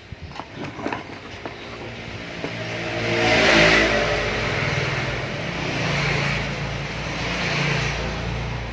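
A motor vehicle engine, growing louder over the first few seconds, running on steadily, then dropping away near the end.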